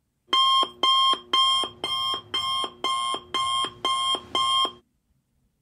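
Electronic alarm sound effect: nine identical beeps at about two a second, stopping suddenly.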